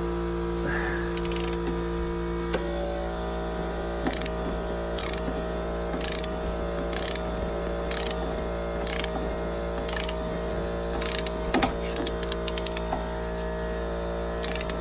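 Ratcheting torque wrench being worked in strokes, sharp clicks about once a second, tightening body mount bolts on a Hummer H2, over a steady low hum.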